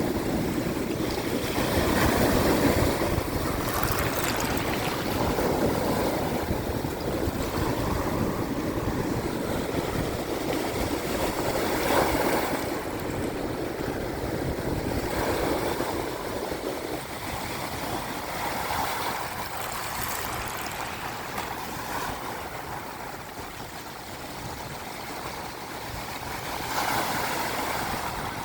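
Small Atlantic Ocean waves washing in against sea shells at the water's edge, the wash swelling and falling back every few seconds.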